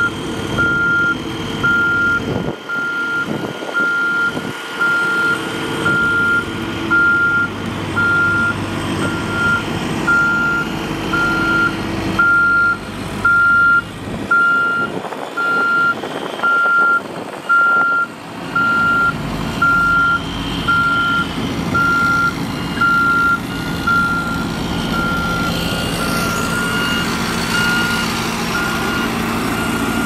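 Reversing alarm on a road roller beeping steadily, about once a second, over the machine's running engine.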